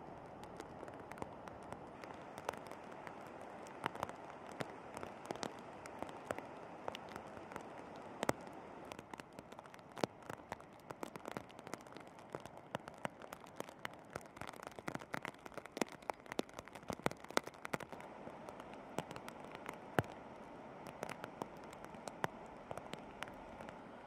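Steady rush of the flooded Waimakariri River, with many irregular sharp clicks and taps of raindrops striking close to the microphone, thickest through the middle.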